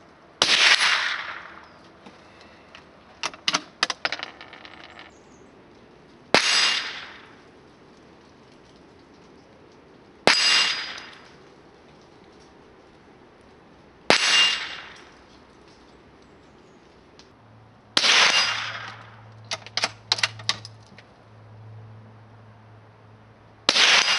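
Six shots from an SDM 98-K .22 LR bolt-action rifle (a Mauser 98 copy), each a sharp crack trailing off in a short echo, fired about every four seconds. Twice between shots comes a quick run of metallic clicks as the bolt is worked.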